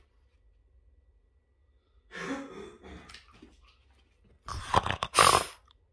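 A Boston terrier fetching a thrown rubber ball, heard as two noisy bursts of scuffling and breathing: one about two seconds in, and a louder, sharper one near the end as the dog comes back up close.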